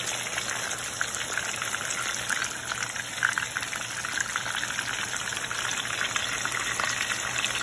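Chicken chapli kebabs shallow-frying in hot oil in a pan: steady sizzling with dense crackle and a few sharper pops, one patty freshly added raw to the oil.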